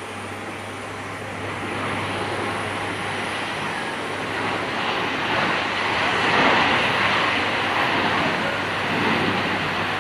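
Boeing 737-800's CFM56 jet engines rushing as the airliner rolls out after landing. The noise swells to its loudest about six seconds in and fades near the end.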